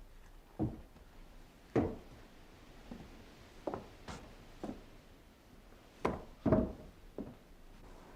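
Irregular wooden knocks and thuds, about eight of them spaced unevenly, the heaviest about two seconds in and again a little after six seconds.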